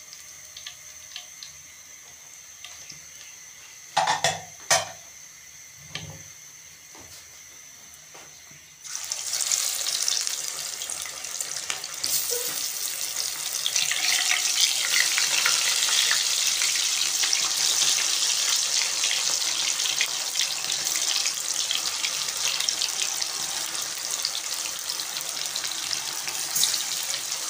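A couple of sharp knocks about four seconds in, then, about nine seconds in, a dense steady sizzle starts abruptly: gram-flour-coated fish slices deep-frying in hot oil in a metal pan.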